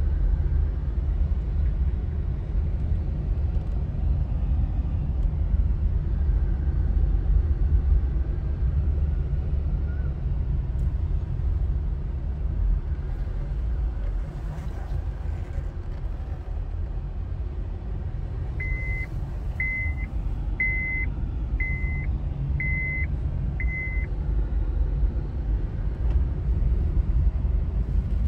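Steady low rumble of a car's engine and tyres heard from inside the cabin while driving. A little past the middle come six short high beeps, about one a second.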